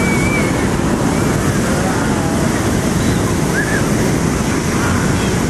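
Steady, loud rushing of wind buffeting the microphone, with faint children's and crowd voices over it.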